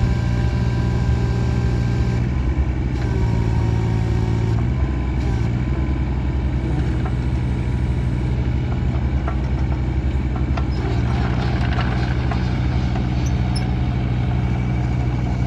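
Takeuchi TB216 mini excavator's diesel engine running steadily as the machine travels on its rubber tracks. A thin whine sits over the engine for the first four or five seconds, and scattered clicks and clanks follow later.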